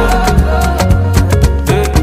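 Background pop music with a steady beat, bass and percussion, in a pause between sung lines.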